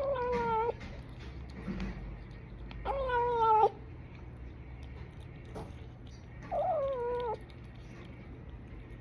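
Kitten meowing to be fed: three drawn-out meows about three seconds apart, each falling slightly in pitch.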